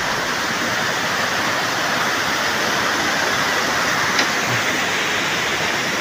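Waterfall: a steady rush of water pouring over the falls.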